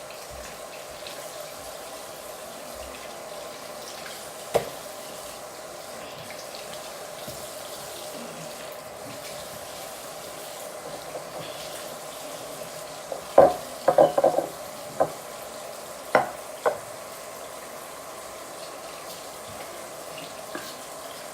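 Tap water running steadily into a sink, a constant hiss, with a knock about four seconds in and a cluster of knocks and clatters a little past the middle.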